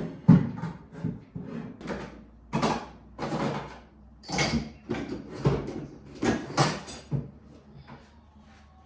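A quick run of short scrapes and knocks, about fifteen in seven seconds, that stops near the end.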